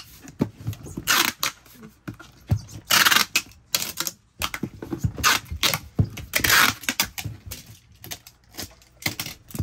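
Clear packing tape being pulled off the roll in about five short, rasping strips and pressed onto a cardboard box, with knocks and rustles as the box is handled.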